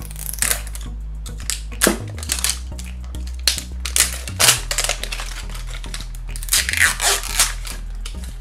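Plastic wrapping on a toy package crinkling in short, irregular bursts as it is gripped and turned in the hand, over soft background music.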